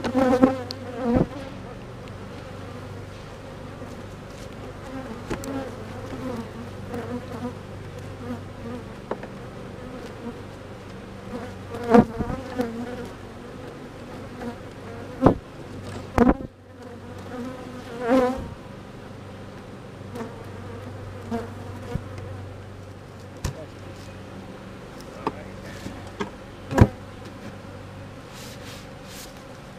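Honeybees buzzing steadily around an opened hive, with scattered sharp knocks and scrapes as the frames are levered into place with a hive tool and the hive is closed back up.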